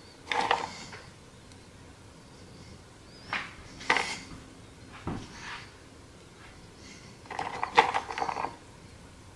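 Pecan halves rattling and clicking in a small plastic container as they are picked out by hand, in several short clattery bursts, the longest near the end.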